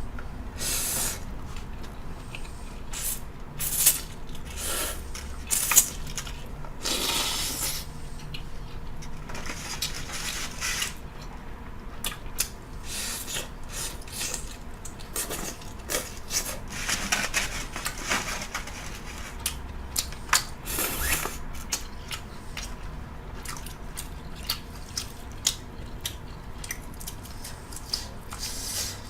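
A person eating ramen close to the microphone: several long noodle slurps among wet chewing sounds and small clicks.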